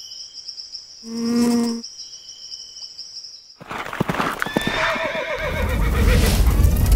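A high steady tone with a short low pitched note about a second in, then from about three and a half seconds a herd of horses galloping: a mass of hoofbeats, with a horse whinnying about a second later, over a low rumble that swells toward the end.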